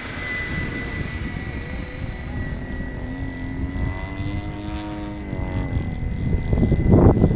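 Radio-controlled 470-size BO 105 scale helicopter in flight: a steady high whine from the motor and rotors, with a hum that rises and falls in pitch in the middle. Wind gusts buffet the microphone near the end.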